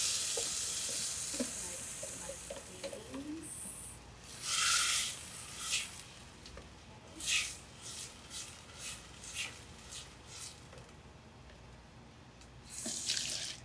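Food sizzling in a hot pan, the hiss dying down over the first couple of seconds. Then come several short, separate bursts of sizzling noise about a second apart.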